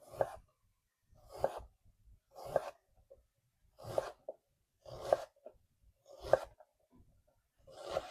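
A kitchen knife cutting through an onion onto a cutting board: seven cuts at an even pace, a little over a second apart.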